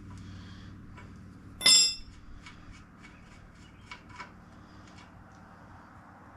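Metal hand tools clinking while a motorcycle's front axle hardware is loosened: one loud, ringing metallic clank about a second and a half in, then a few lighter clicks and taps.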